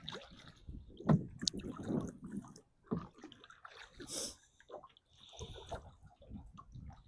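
Water splashing and dripping against a kayak in small, irregular splashes.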